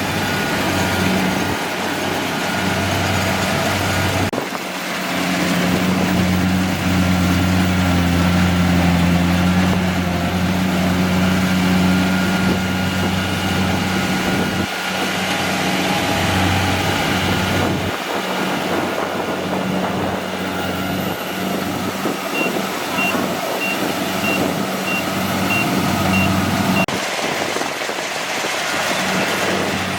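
Kubota DC-70G PRO combine harvester's diesel engine running steadily under load, with a steady low hum. For several seconds near the end a high warning beep sounds about twice a second, like a reversing alarm.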